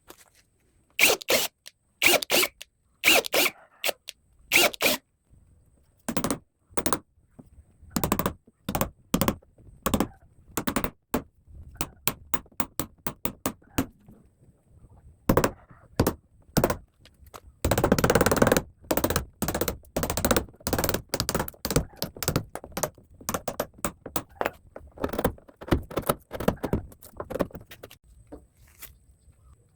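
Door-hinge fitting work on wood: a long irregular series of sharp knocks, taps and scrapes, with a denser, busier stretch of scraping and rattling about 18 s in.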